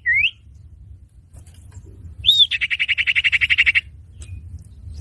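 Common iora (cipoh) calls played as a bird-trapping lure. A rising whistled note ends the first moment. About two seconds in comes a short down-slurred note, followed by a rapid, even trill of roughly a dozen notes a second that lasts just over a second.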